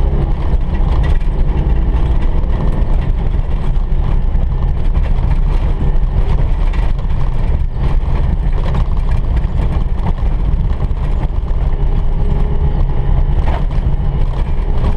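Citroën 2CV's air-cooled flat-twin engine running steadily at speed, with road noise, heard from inside the cabin.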